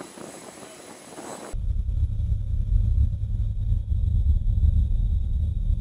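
C-130J Hercules on its takeoff roll: a loud, steady low rumble that comes in suddenly about one and a half seconds in, after a quieter hiss.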